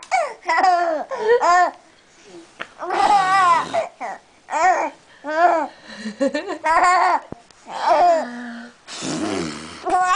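Infant laughing and cooing: a string of short, high-pitched wavering squeals broken by breathy gasps.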